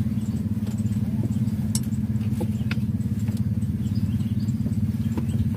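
A motor running steadily, a low droning engine sound with a rapid even pulse. A few light clicks come about two seconds in.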